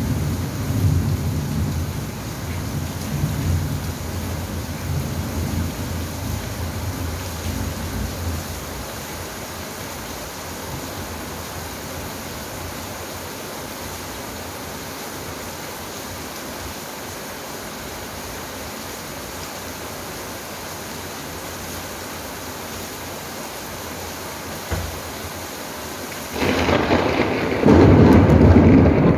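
Rain falling steadily, with thunder rumbling low and dying away over the first eight seconds or so. Near the end a loud thunderclap breaks in suddenly and keeps rolling.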